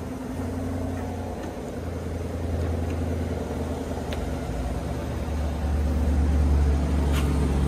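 2020 Chevrolet Corvette's 6.2-litre V8 idling with a steady low rumble that grows a little louder over the last few seconds. A light click about four seconds in as the driver's door is opened.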